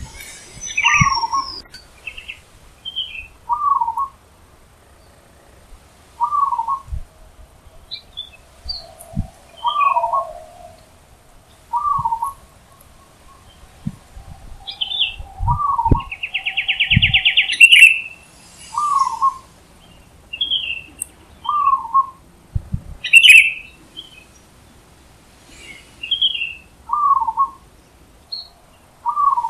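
Zebra dove calling: short coo notes repeated every one and a half to two seconds. Other small birds chirp higher in between, with a brief buzzy trill near the middle.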